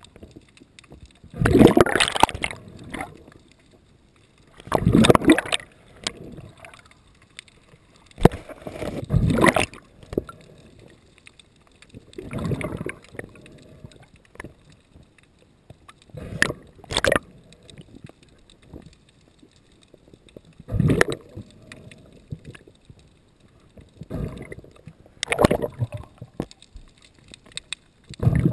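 Sea water sloshing and gurgling around the camera in surges every three to four seconds, with quieter stretches between.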